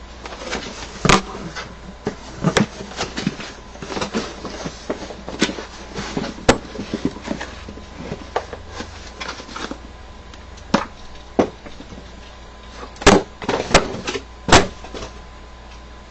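Packaging being handled and opened by hand: irregular rustling and scraping with scattered sharp knocks and clicks, the loudest a few seconds before the end.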